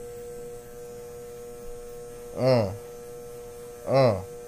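Corded electric hair clippers running with a steady hum while cutting. A man's voice makes two short sounds over them, each rising then falling in pitch, about a second and a half apart in the second half.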